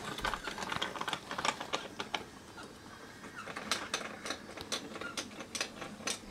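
Small plastic toy mechanisms clicking and clattering in an irregular run. The clicks come thick and fast at first, then sparser and sharper later on.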